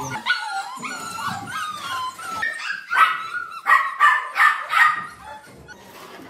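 Puppies whining and yelping, in pitched calls that slide up and down, with a run of short loud yelps about three seconds in.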